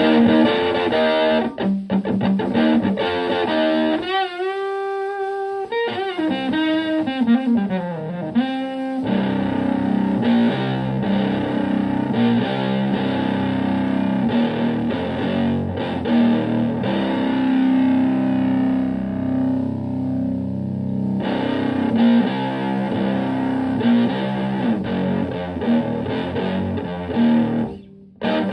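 Stratocaster electric guitar played through a Höfner 'The Höf' preamp driving a Fender Twin Reverb-style tube amp into overdrive. A few seconds in, a held note wavers with wide vibrato, then slides down in pitch before chords and riffs take over, cutting off near the end.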